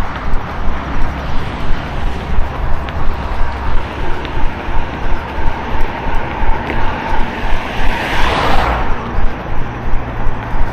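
Running footsteps jolting the hand-held microphone in an even beat of about three strides a second. A vehicle passes close by about eight seconds in, its road noise swelling and then fading.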